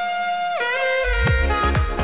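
Background music: a long held note that slides downward, then a deep bass line and a steady beat come in halfway through.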